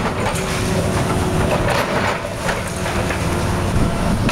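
Tracked hydraulic excavator working, its diesel engine running steadily under load, with scattered sharp knocks and cracks as the bucket breaks up the concrete structure.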